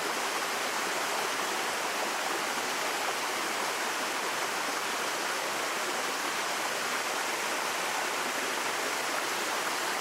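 Water rushing steadily down a small waterfall in a rocky forest stream, a constant even noise with no breaks.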